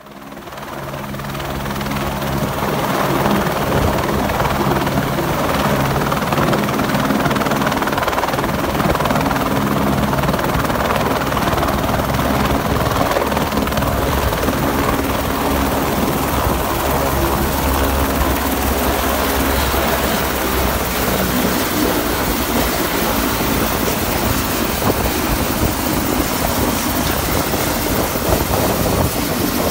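Single-engine tour helicopter setting down on a helipad and then running on the pad with its main rotor turning. It is a steady, loud engine-and-rotor sound that swells over the first two or three seconds and then holds.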